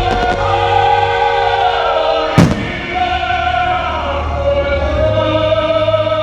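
Opera-style choral music with sustained sung notes, broken about two and a half seconds in by a single loud firework burst. A few faint crackles sound at the very start.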